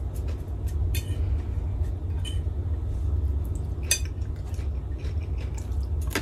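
Metal fork clinking and scraping against a plate a few times while eating, the sharpest about four seconds in, over a steady low hum.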